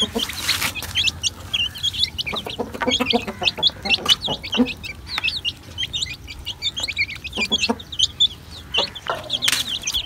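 A brood of chicks peeping constantly in quick, high chirps while feeding, with a few short, low clucks from the mother hen.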